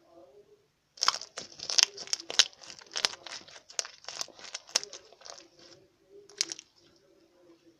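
Slime being squeezed and worked by hand, giving a rapid run of sharp crackling pops from about a second in until near the end.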